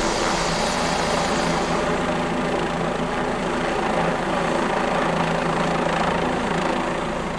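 Helicopter running steadily: an even engine and rotor noise with a few held low tones, easing slightly near the end.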